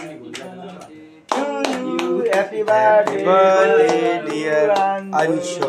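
A group of voices singing together over rhythmic hand clapping, about three claps a second. The singing is quieter at first and comes in loudly about a second and a half in.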